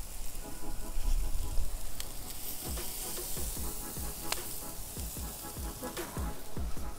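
Chicken skin sizzling on a charcoal grill over the embers, with a few sharp clicks as pieces go down. Gusts of wind rumble on the microphone.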